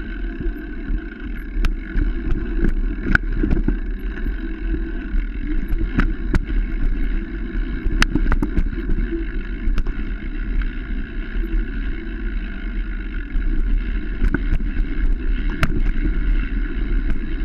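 Wind rushing over the microphone of a mountain bike camera riding fast down a rough dirt trail, with the bike's rattle and irregular sharp knocks as it hits bumps.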